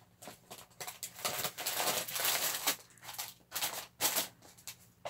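Irregular rustling and scratchy clicks, densest in a stretch of steady rustling from about one to three seconds in.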